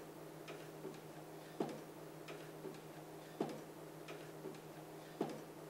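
Faint, regular clock ticking: a sharper tick about every two seconds with softer ticks in between, over a low steady hum.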